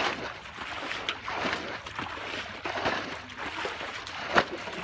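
Muddy water being scooped and thrown out of a shallow ditch with a basin, splashing and sloshing in repeated bursts. A single sharp slap near the end is the loudest sound.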